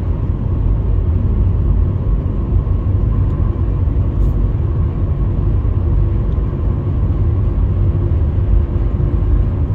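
Steady low rumble of a car driving along a highway, heard from inside the cabin.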